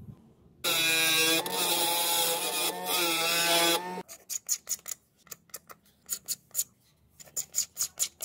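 A small table saw runs and cuts through a PVC plate for about three seconds, its motor pitch wavering under the load. Then come a series of short scrapes, two or three a second, as a blade shaves the burrs off the cut plastic edge.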